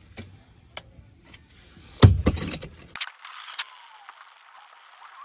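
Oil filter pliers clicking and clanking against a spin-on oil filter as it is worked loose. There is a loud clank with a short clatter about two seconds in, then a few lighter clicks.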